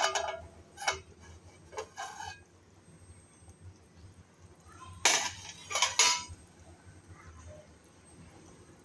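Steel plate lid clanking on an aluminium cooking pot as it is lifted off, with a couple of smaller clinks after. Two louder metal clanks come about five and six seconds in.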